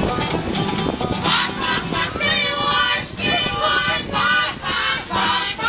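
Live country band music with singing, the voices carrying wavering lines over the band from about two seconds in.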